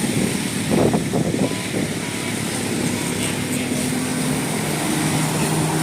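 Road traffic: the engines of passing vehicles running, a continuous rumble with a steady low hum that shifts pitch as different vehicles go by.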